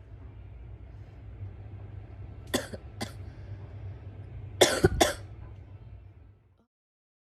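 A girl coughing with bronchitis: two sharp coughs about two and a half seconds in, then a louder burst of three quick coughs about two seconds later. The sound cuts off suddenly near the end.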